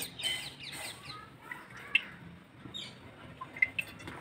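A steel spoon clinks sharply against an aluminium pressure cooker as cooking oil is added, twice: at the start and again about two seconds in. Short high chirps sound in the background.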